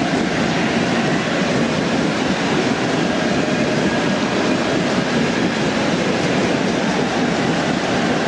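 Large football stadium crowd making a steady, loud din, with no single cheer or whistle standing out.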